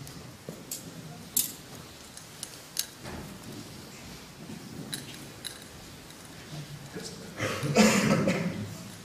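Scattered light metallic clinks, like the chains of a swinging thurible, over the low shuffle and murmur of a congregation on the move. About three-quarters of the way through comes a louder stretch of rustling and movement.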